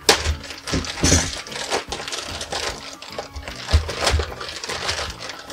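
Clear plastic bag crinkling and crackling in quick irregular bursts as it is cut open and pulled apart by hand.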